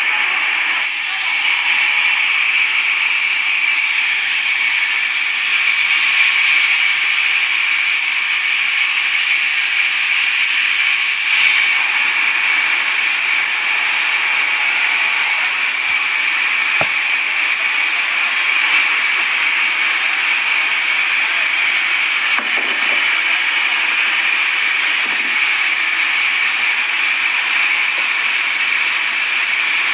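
Sawmill saw blade cutting steadily through a log, a loud continuous high hiss with no break.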